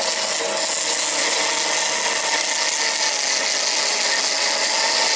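Electric saw with a freshly fitted blade cutting slowly through a steel offcut: a steady, even running and cutting noise. The saw is slow and not very powerful.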